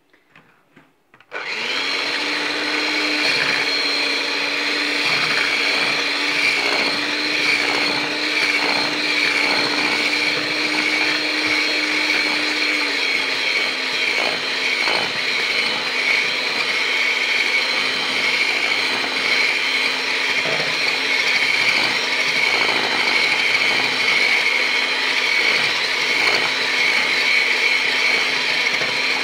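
Electric hand mixer switching on about a second in and running steadily, its beaters whisking eggs with sugar and sour cream in a stainless-steel bowl. Its hum drops a little in pitch a little before halfway through.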